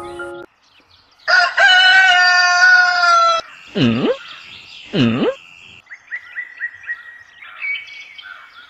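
A rooster crows once, a cock-a-doodle-doo of about two seconds. Two quick swooping sounds follow, diving in pitch and rising again, and then light bird chirping.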